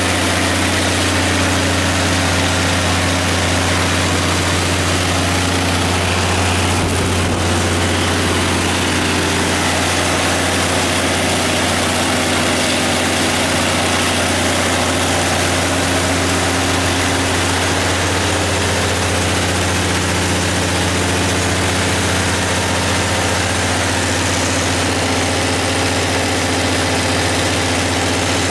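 Cummins NT855G turbocharged inline-six diesel engine of a 230 kW generator set running at a steady, unchanging speed.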